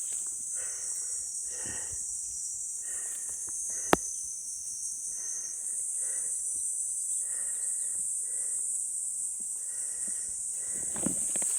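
A steady, high-pitched insect chorus, with soft short rustling sounds about once a second and one sharp click about four seconds in.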